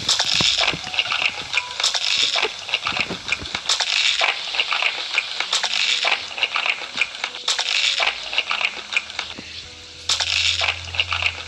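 Close-up crunching of crisp food being bitten and chewed, in crackly bursts about every two seconds.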